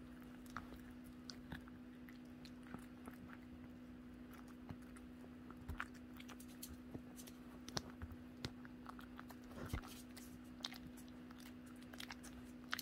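A Chihuahua chewing food held between its front paws: faint, irregular crunches and clicks of its teeth over a steady low hum.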